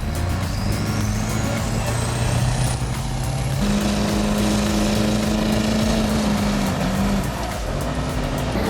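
Duramax diesel truck engine running under load, with a high turbo-like whistle rising over the first few seconds; the engine note steps up in pitch a little before the middle.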